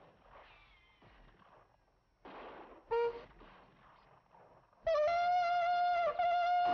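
Bugle blown: one short blast about three seconds in, then from about five seconds a long held note that steps up slightly as it starts and breaks off briefly near the end.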